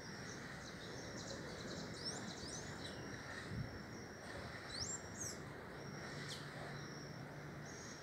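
Wild birds chirping: scattered short high calls and a few quick rising whistles, with a thin high note repeated in short dashes, over a steady outdoor hiss.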